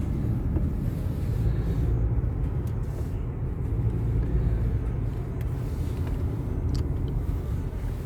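Steady low road and engine rumble of a car heard from inside the cabin while driving.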